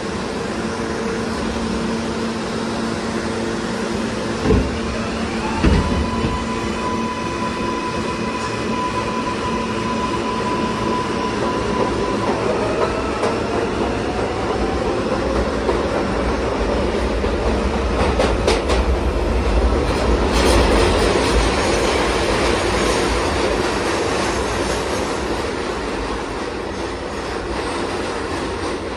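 Bombardier R143 subway car heard from inside, accelerating: over the steady hum of the car's HVAC, two thumps come about five seconds in, then the propulsion inverter's whine rises and holds one steady tone for several seconds. Wheel and track noise then builds into a rumble, with rail-joint clicks a little past the middle.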